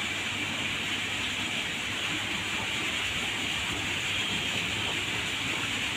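Steady hissing ambient noise of an aquarium hall, unchanging throughout, with no distinct events.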